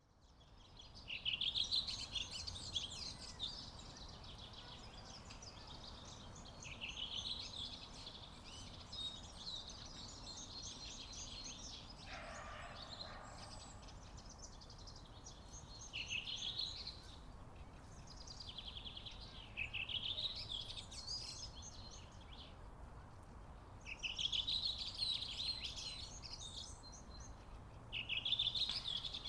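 Songbirds singing, with one bird repeating a short trilled song phrase every few seconds, over a steady low background hum.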